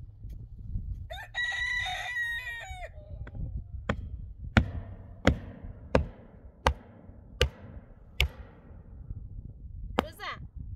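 A rooster crows once about a second in. Then come seven evenly spaced sharp strikes, roughly one every 0.7 s, each with a brief ring, like hammer blows on metal. A short bird call follows near the end.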